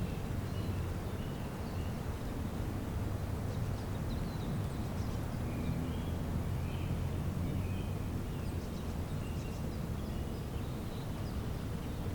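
Songbirds chirping faintly in short scattered calls, over a steady low rumble that is the loudest sound.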